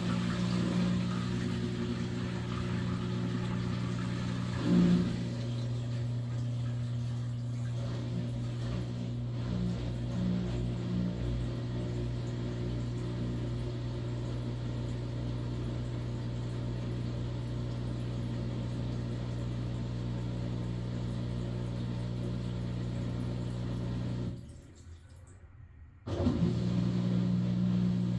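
Maytag washing machine running with a steady motor hum. About 24 seconds in the motor stops for under two seconds, then starts up again.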